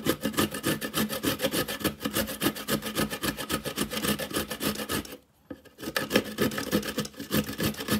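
Carrot being grated on a handheld stainless-steel grater: quick, steady rasping strokes, several a second, with a brief pause about five seconds in.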